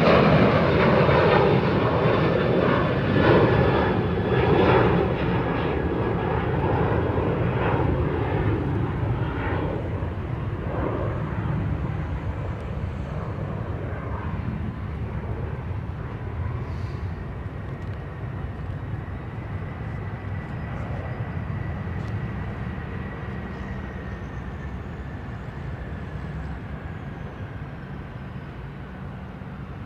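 Boeing 747-400 freighter's four jet engines just after touchdown. The engine noise is loud at first and fades steadily as the jet rolls away down the runway, with a faint high whine that drifts slightly lower.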